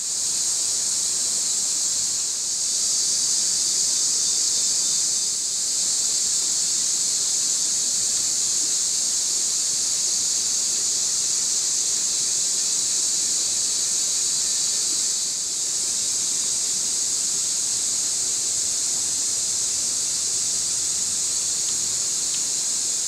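Insect chorus in the forest: a steady, high-pitched hiss that holds without a break.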